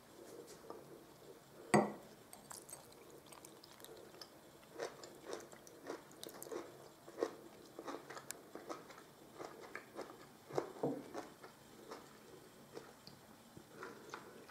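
Faint, irregular crunching and clicking sounds, with one sharper knock about two seconds in.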